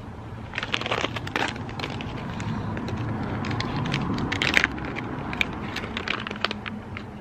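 Packaging crinkled and handled in the hands: a run of sharp crackles, loudest about four and a half seconds in.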